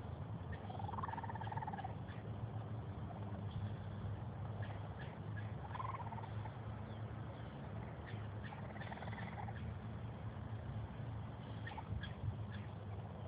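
Baby raccoon kits crying: three short, high calls that rise and fall, about a second in, at about six seconds and near nine seconds, with faint clicks between. A steady low rumble runs underneath.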